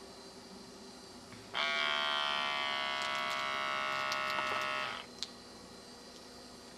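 Wrist blood pressure monitor's small air pump running as it inflates the cuff to a higher pressure, a steady electric buzz whose pitch sinks slightly. It starts about a second and a half in, cuts off abruptly after about three and a half seconds, and is followed by a short click.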